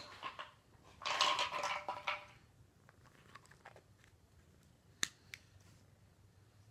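Plastic medicine bottle being handled: a loud scratchy rustle about a second in, small ticks, then a sharp click about five seconds in as the cap snaps shut.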